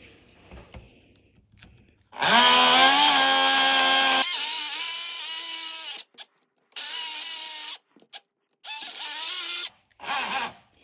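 Small electric motor of a Carrera 1/32 slot car spinning its wheel in four bursts, with a utility knife blade held against the spinning plastic wheel to shave it true. The first burst is the longest, a whine that rises slightly in pitch with a hissing scrape, and three shorter bursts follow.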